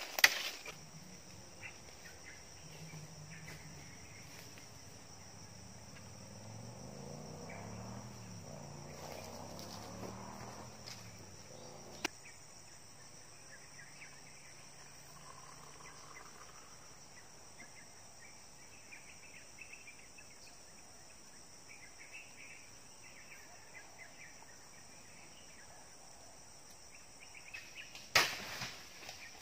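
Insects in the grove buzzing in a steady, high, even drone, with a single sharp click midway and a few loud knocks near the end.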